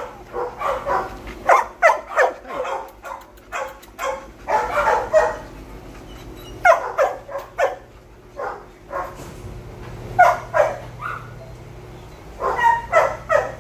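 Shelter dogs barking in their kennels, in short clusters of barks every couple of seconds.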